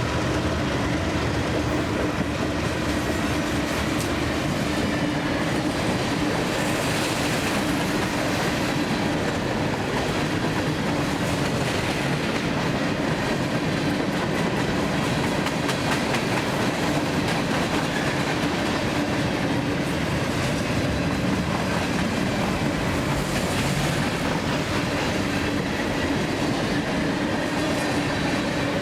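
Long freight train of grain hopper cars rolling past, with a steady clatter of steel wheels over the rail joints and a continuous rumble.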